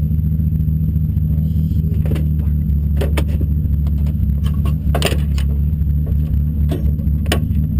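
Toyota Celica race car's engine idling steadily, heard from inside the cabin. Over it come a handful of sharp clicks and knocks as the driver's window net is unlatched and dropped.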